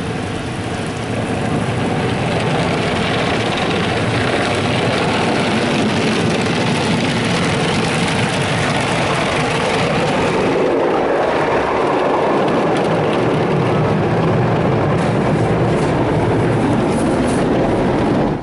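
High-pressure water jets of a PDQ ProTouch automatic car wash spraying against a pickup truck, heard from inside the cab as a loud, steady rush. A little past halfway the sound turns duller as its high end drops away, and it cuts off abruptly near the end.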